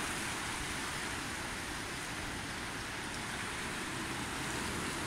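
Fast floodwater in a swollen, muddy stream rushing past: a steady, even wash of water noise.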